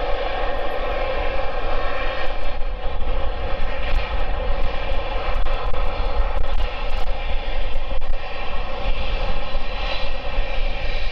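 The Boeing 787-9's two GE GEnx turbofan engines running at taxi power as the airliner taxis. They make a steady jet whine of several held tones over a low rumble.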